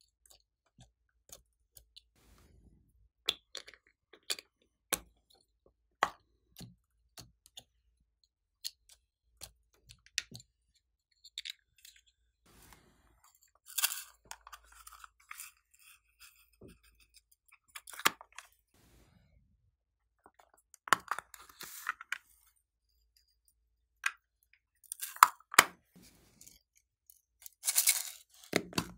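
Small plastic makeup cases and palettes being handled, tapped and set down: scattered sharp clicks and taps, with a few longer crackling, rustling spells. The loudest of these comes near the end.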